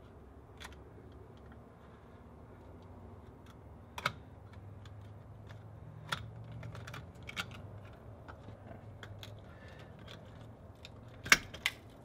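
Utility knife blade cutting and scraping through the caulk around a doorbell push button: scattered light clicks and scrapes. Near the end come two sharp clicks as the button is pried loose from the wall.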